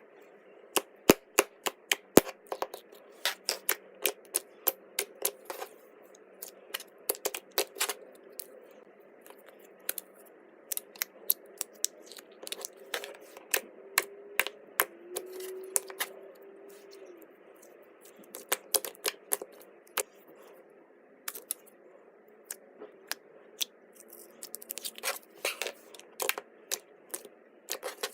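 Slime being pressed, folded and stretched by hand, giving many sharp pops and clicks in irregular clusters.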